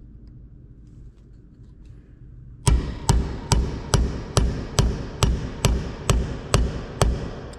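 A hammer striking a metal punch held on a metal spoon over a wooden block, punching a hole for a spoon lure's hook or line tie. About a dozen evenly spaced blows, a little over two a second, start about two and a half seconds in, each ringing briefly.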